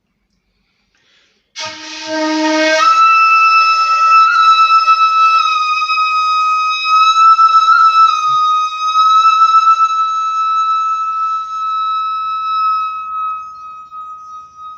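Jinashi 1.7 shakuhachi (bamboo end-blown flute) being played: a short, breathy low note, then a leap to a very high note held for about twelve seconds with slight wavers in pitch, fading near the end.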